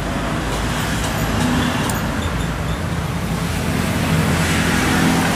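Steady low mechanical rumble with a hum, and a faint click about two seconds in.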